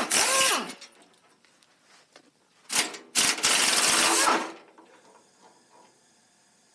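Pneumatic impact wrench loosening bolts in two bursts: a short one at the start and a longer one of about a second and a half near the middle. Each burst falls in pitch as the wrench winds down.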